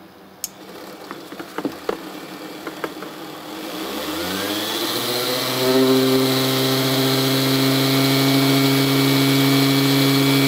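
Rotary tool with a flexible-shaft drive spinning up and running steadily, its handpiece resting on a plastic tool case and buzzing with the drive's vibration. A few handling clicks come first, then the motor hum rises in pitch about four seconds in and holds steady and loud.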